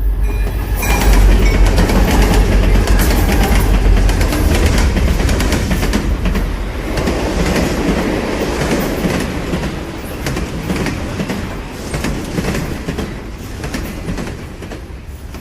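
Train rumbling past with wheel clatter, loudest a second or so in, then slowly fading away.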